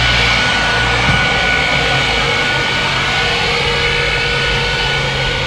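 Leaf blower running steadily at full power with a constant whine, blowing fine polymeric sand dust off a paver surface before the sand is wetted.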